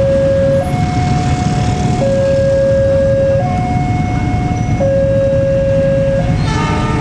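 Level-crossing warning alarm sounding a two-tone electronic signal, switching between a lower and a higher tone about every one and a half seconds. Under it is the low rumble of an approaching KAI diesel-electric locomotive hauling passenger coaches. A short burst of higher tones cuts in near the end.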